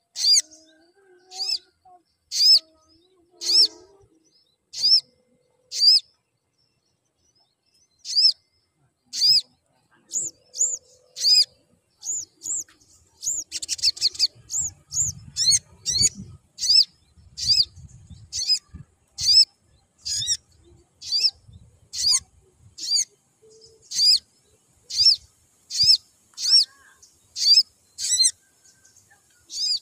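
Caged male sunbird (sogon) calling with a long series of short, sharp, high chirps, about one a second. After a pause of about two seconds the chirps quicken to about two a second for several seconds, then ease back to the earlier pace.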